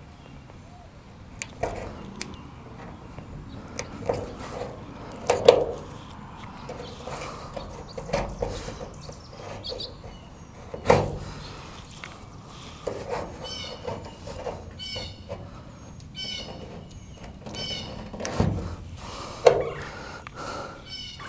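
Scattered knocks and clatter from work on an aluminum boat, loudest three times, with birds chirping repeatedly in the background through the second half.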